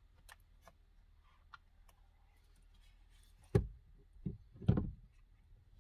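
Faint clicks of parts being handled, then three dull knocks in the second half, the last one longer: hands fitting connectors and parts at a pickup truck's steering column while a new clock spring goes in.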